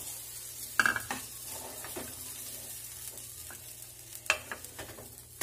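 Ground green-pea paste sizzling faintly in oil in a frying pan while a spatula scrapes and stirs it across the pan, with a few sharp scrapes, loudest about a second in and again just after four seconds. The paste has been fried until dry.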